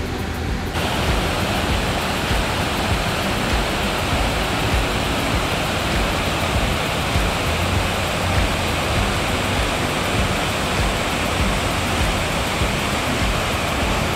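Waterfall rushing steadily, white water pouring down a steep rocky creek channel; the sound sets in abruptly about a second in.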